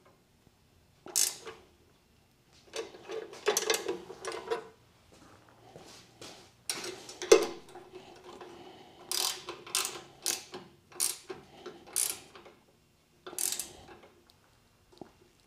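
Mounting bolts of a CNC fourth-axis rotary attachment being tightened down onto its brackets with a hand tool: short bursts of metallic clicking, a dozen or so strokes with pauses between.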